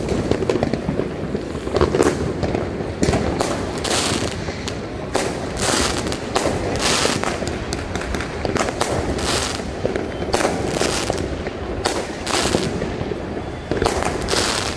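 New Year's Eve fireworks and firecrackers going off all around: many sharp bangs and cracks, a few a second, over a continuous din of more distant bangs.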